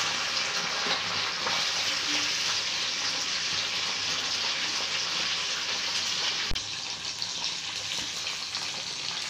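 Whiting (kilanga fish) deep-frying in hot oil in an iron kadai: a steady sizzle, with one sharp click about two-thirds of the way through.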